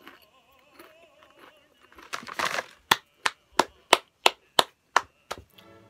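A crunchy bite into a Honey Butter Chip potato chip, followed by eight even hand claps at about three a second.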